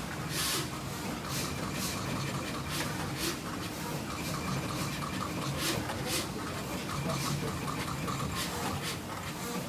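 Pick-and-place machine running: a steady low hum with a faint fast ticking, broken by short, irregular hisses of air every half second to a second.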